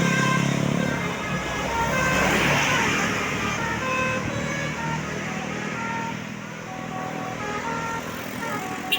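Tour bus's Basuri telolet multi-tone horn playing a tune of short notes at changing pitches, over traffic noise and a bus engine running low in the first second or so. The sound grows quieter toward the end, and there is a brief click just before the end.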